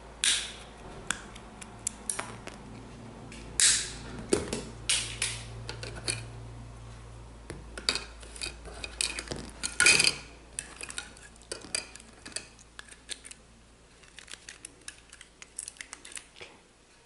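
A plastic headphone earcup and a utility knife being handled and worked by hand: irregular clicks, scrapes and knocks, the loudest near the start, about four seconds in and about ten seconds in, then smaller clicks that get quieter toward the end.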